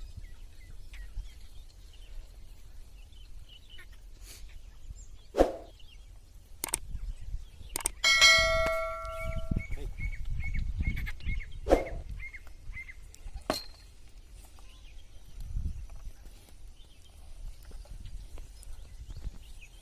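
A metal bell or piece of metal struck once about eight seconds in, ringing with several clear tones that fade over a second or two, one high tone lingering a few seconds more. Two short calls come a few seconds before and after it, over a low outdoor rumble.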